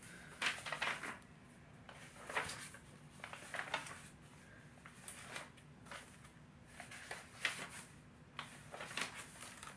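Pages of a paperback book being leafed through: a series of short, quiet paper rustles.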